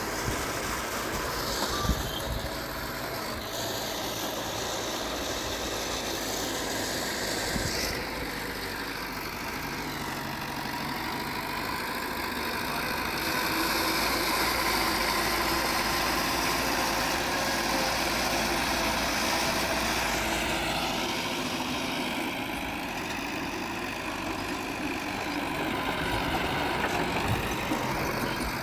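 Diesel engine of heavy earthmoving machinery running steadily, growing somewhat louder about halfway through and easing off again later.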